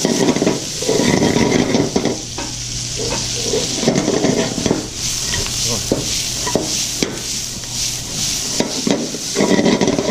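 Peppers, carrots and mushrooms sizzling in hot sesame oil in a pan, with repeated bursts of a utensil stirring and scraping them around the pan.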